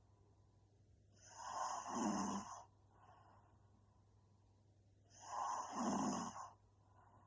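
A young woman snoring in her sleep: two snores about three and a half seconds apart, each lasting over a second.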